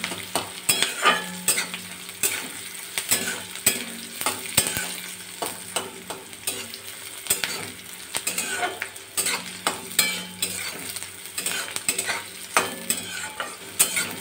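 Chopped onions sizzling in hot oil in an aluminium kadai while a flat metal spatula stirs them, scraping and clinking against the pan several times a second. The onions are being fried until they turn golden.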